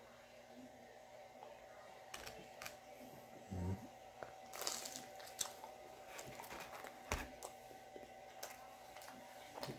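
Faint eating sounds of a man biting into and chewing a meat-filled calzone (a Pizza Hut P'Zone), with scattered soft crunches and mouth clicks.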